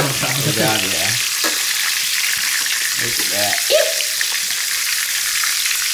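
Breaded pheasant pieces sizzling steadily as they shallow-fry in hot oil in a stainless steel pan, with metal tongs turning them and ticking against the pan.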